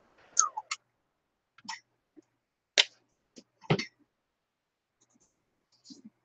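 Scattered small clicks and taps, about seven over a few seconds, of a pen and small items being picked up and handled on a craft table.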